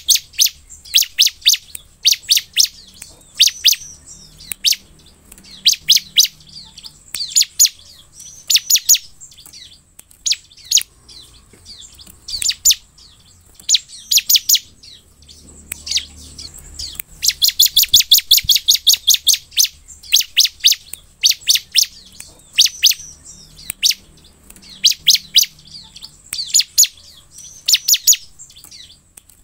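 Bar-winged prinia (ciblek) calling: sharp, high chips fired in quick clusters every second or two, with one longer, faster run about two-thirds of the way through.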